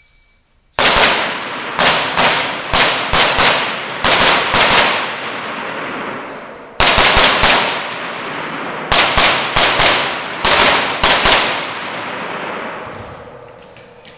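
Rapid strings of gunshots echoing in an indoor shooting range: about two dozen shots in several quick volleys with short pauses between them, the reverberation trailing after each.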